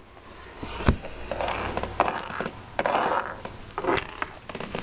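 Rustling handling noise with a few light knocks, from small plastic toys and the camera being moved about at close range.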